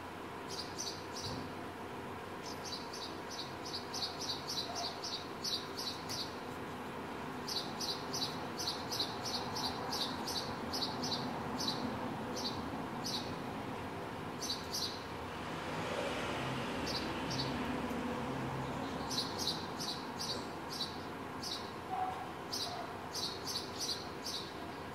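House sparrow chirping: short, sharp chirps repeated about three to four a second in runs with short pauses. Under it runs a steady street hum, and a vehicle passes about two-thirds of the way through.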